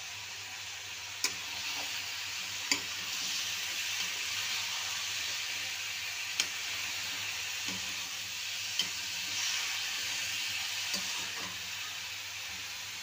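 Chopped onion, green chilli and pumpkin cubes sizzling steadily in hot oil in a metal pan while being stirred. A metal spatula knocks against the pan about half a dozen times.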